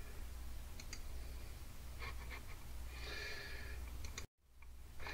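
Quiet room tone with a low steady hum and a few faint clicks, and a soft hiss about three seconds in. The sound cuts out to complete silence for a moment just after four seconds.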